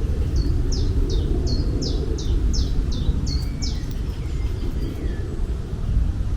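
A bird singing a quick run of about ten high, down-slurred notes, about three a second, ending a little before four seconds in, over a steady low rumble.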